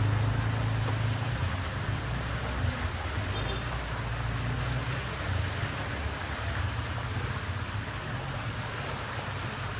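Car driving slowly through floodwater: a steady rush of water stirred up by the tyres, over the low hum of the engine, which is strongest in the first second or so.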